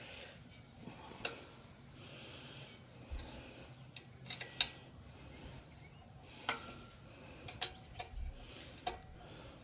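Light metallic clinks and clicks at irregular intervals, the two loudest about four and a half and six and a half seconds in: hand tools and metal bike parts being handled.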